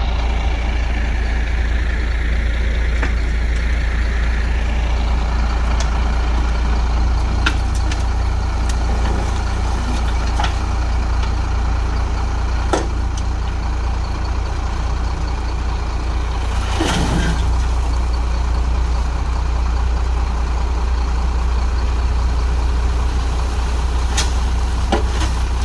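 International S1900 dump truck's DT466 inline-six diesel engine running steadily, with a scattering of sharp clicks and knocks over it, one longer and smeared about two-thirds of the way through.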